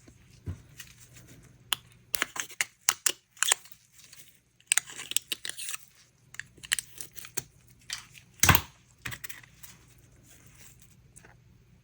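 Small plastic colourant bottles being handled and opened: a scattered run of short clicks, crackles and scrapes, with one louder knock about eight and a half seconds in.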